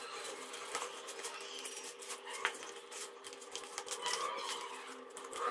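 Silicone spatula stirring mashed boiled potato and spices in a plastic bowl: quiet, irregular soft scrapes and taps against the bowl, over a faint steady hum.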